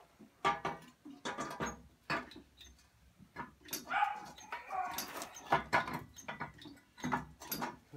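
A dog barking and yelping in short, repeated barks, mixed with sharp clanks of metal tools and parts being handled.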